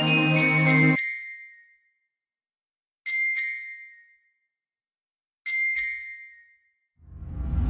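Electronic music track in a breakdown. The full mix with bass cuts out about a second in, leaving two lone high, bell-like chimes that each ring out and fade to silence. Near the end a rising swell brings the full mix back in.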